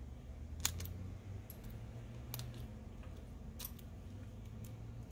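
A few light, sharp clicks and taps, spaced irregularly, as a small hand tool works against a smartphone's metal frame, over a low hum.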